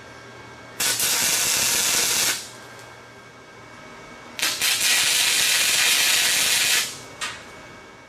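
Small 125 amp flux-core wire-feed welder tack welding steel gussets: two steady bursts of arc hiss, about a second and a half and then two and a half seconds long, and a short blip near the end.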